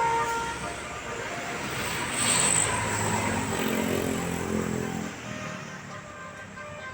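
The last notes of a multi-tone 'telolet' bus horn tune at the very start, then a tour bus passing close on the road: engine and tyre noise swell to their loudest about two to three seconds in and fade away.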